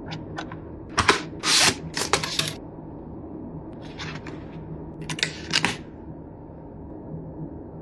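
Handling of a smartphone's retail box and its packaging: a series of sharp clicks, scrapes and rustles of cardboard and plastic. They are loudest in the first two and a half seconds, with another cluster about five seconds in.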